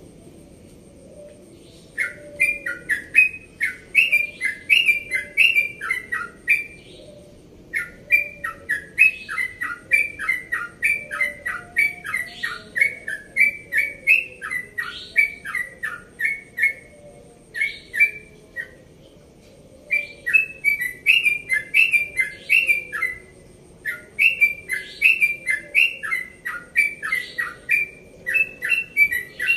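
Caged yellow-vented bulbul (trucukan) singing its rapid repeated 'ropel' song: long runs of short, clear whistled notes, about two a second, starting about two seconds in and broken by brief pauses.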